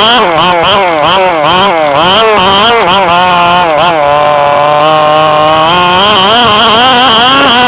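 Radio-controlled car's motor running under quick throttle changes, its pitch rising and falling several times a second, then holding steady for a couple of seconds before rising again near the end.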